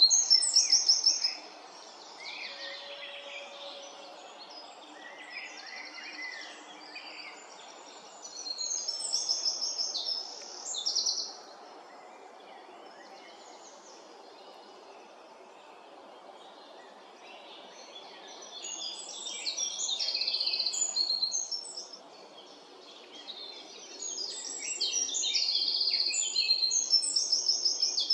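Songbirds singing in several phrases of rapid repeated high notes, each a few seconds long with quieter gaps between, over faint steady background noise.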